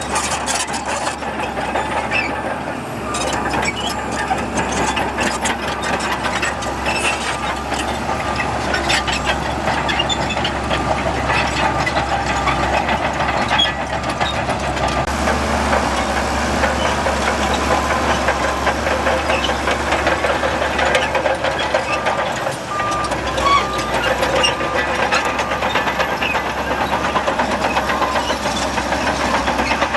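Heavy diesel earth-moving machinery working, its engine running steadily under load with continuous rattling and clanking. Short repeated beeps come in over it in the second half.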